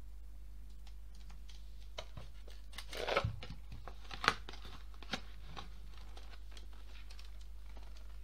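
An eyeshadow palette and its cardboard packaging being handled: a brief rustle about three seconds in, then a few sharp clicks and taps.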